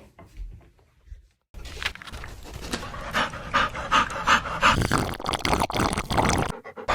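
Pug panting in quick, rhythmic, noisy breaths, starting about a second and a half in and cutting off near the end.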